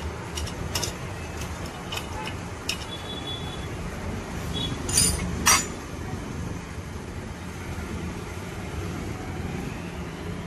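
Light metallic clicks and clinks from a scooter cylinder head, with its cam sprocket, being turned and handled: a scatter of small ticks in the first few seconds, then two louder clinks about five seconds in. A steady low rumble sits underneath throughout.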